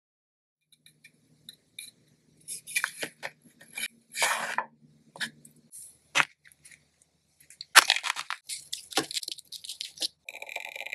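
Crinkling and rustling of a miniature instant-noodle packet's plastic wrapper as it is handled and opened, with sharp little clicks. The crinkling is densest near the end as the packet is torn open and the noodle block comes out.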